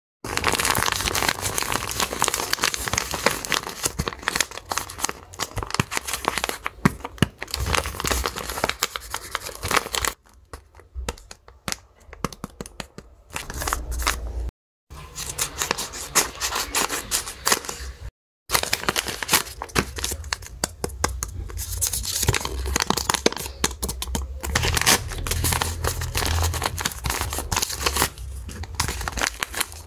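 Paper blind bags being handled and torn open by hand: dense crinkling, rustling and ripping of paper. It goes quieter for a few seconds before the middle and drops to dead silence twice, briefly.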